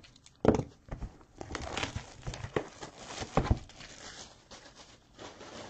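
Trading card packs and cards being handled: crinkling of wrapper and a series of knocks and clicks. The loudest knock comes about half a second in and another after about three and a half seconds.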